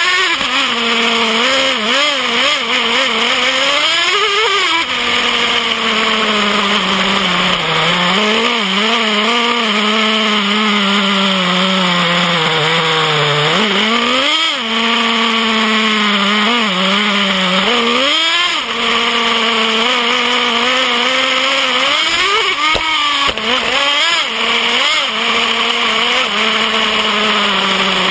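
Nitro glow engine of a Traxxas Revo 3.3 RC monster truck running close to the chassis-mounted camera, its high buzzing pitch rising and falling several times as the throttle is opened and eased off.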